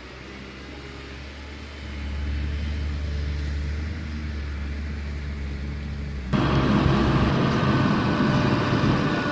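Heavy construction machine's diesel engine running with a steady low hum that grows louder about two seconds in. About six seconds in it switches abruptly to a louder, noisier machine sound with a faint whine.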